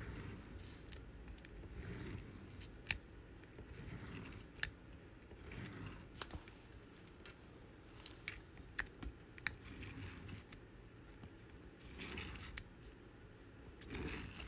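Diamond painting drill pen pressing round drills onto the sticky canvas: faint, irregular small clicks and taps, with soft rustling now and then.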